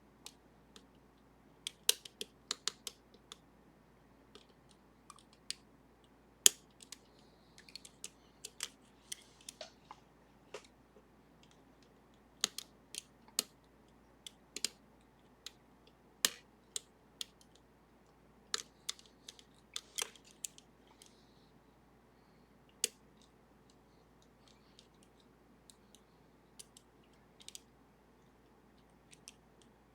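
Irregular small metallic clicks and light scraping of a pick working the serrated levers of a Sargent and Greenleaf 4440 series safety deposit box lever lock, with quiet gaps between the clicks.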